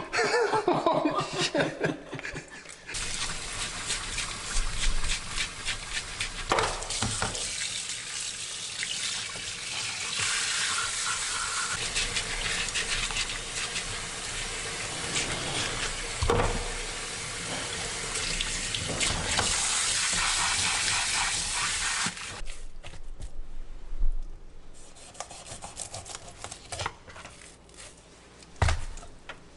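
Kitchen tap running into a stainless steel sink while a tautog is rinsed and scrubbed with a brush under the stream. The water stops about two-thirds of the way through, followed by a couple of sharp knocks.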